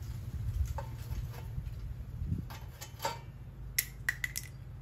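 Light clicks and taps of a throttle cable and marker handled against a thin sheet-metal exhaust shield. A quick cluster of three comes near the end, over a steady low hum.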